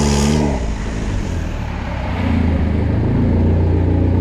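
Turbocharged Honda Civic engine running as the car creeps along. About half a second in, the revs and a high hiss drop away, and the engine settles into a low, steady run that grows a little louder in the second half. It sounds healthy, with no rubbing from the wheel now that the dust shield is fixed.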